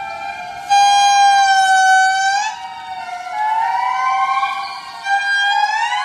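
Indri lemurs singing in chorus: several long, wailing, siren-like calls overlapping and gliding in pitch. A loud held call comes in under a second in and sweeps upward as it ends about two and a half seconds in, and another sweeps upward near the end.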